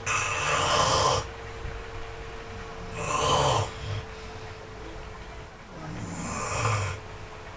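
A person snoring in deep sleep, worn out: three loud snoring breaths, about three seconds apart.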